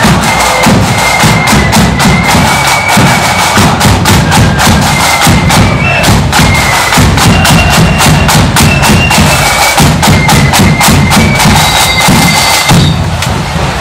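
Marching flute band playing: flutes carry a melody over rapid side-drum strokes and a heavy bass-drum beat, loud and continuous.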